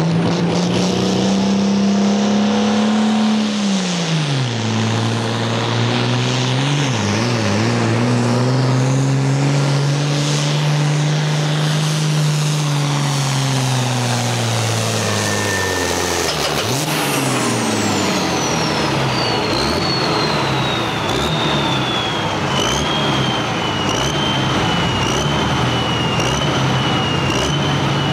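International Harvester hot farm pulling tractor's turbocharged engine running hard under the sled's load. The engine note sags as it bogs about four seconds in and again near seven seconds, holds high, then drops away after about sixteen seconds as the pull ends. The turbocharger's high whine then falls slowly and wavers as it spools down.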